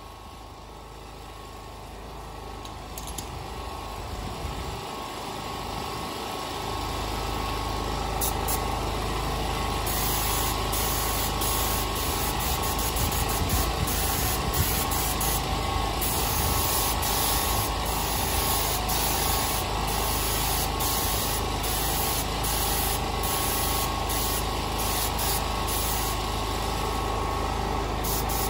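Portable generator engine running steadily, fading up over the first several seconds. From about ten seconds in, the hiss of a compressed-air paint spray gun joins it, cutting in and out in short bursts.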